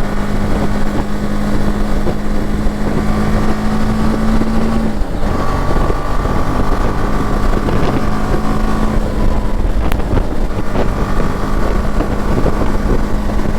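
BMW G 310 GS single-cylinder motorcycle engine running at a steady road speed, with wind noise on the microphone. The engine note breaks off briefly about five seconds in and comes back slightly lower.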